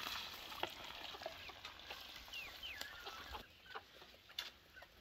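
Chickens clucking, with a few short sliding calls.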